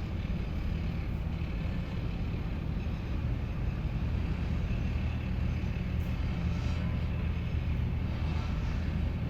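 A steady low motor drone, like an engine or machine running.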